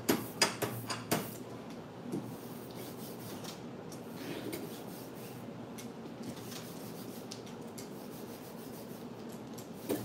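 A few sharp taps in the first second, then steady rubbing and scraping as ink is worked across the stencil screen of a hand mimeograph printing frame.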